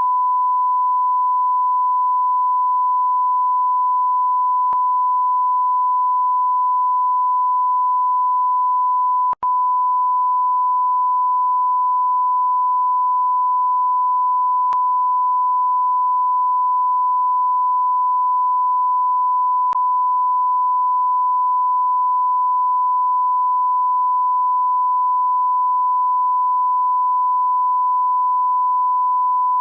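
Continuous 1 kHz censor bleep: a single pure steady tone held at a constant level, broken once by a split-second dropout about nine seconds in, with faint clicks at the loop joins every five seconds or so.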